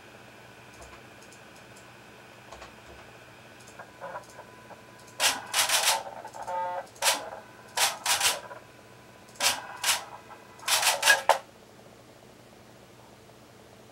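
Linear servo motor axis whose carriage makes quick back-and-forth moves along its rail at high speed and acceleration. Each move is a short, loud burst of rattling, hissing noise, about six of them from about five seconds in until near the end, over a low steady hum.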